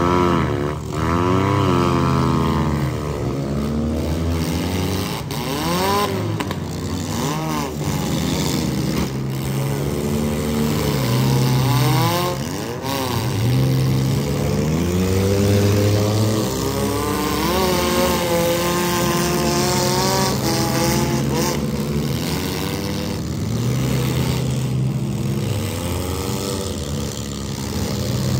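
Several demolition derby cars' engines revving up and down, overlapping, as the cars ram and shove each other. Now and then a sharp bang of a car hitting another.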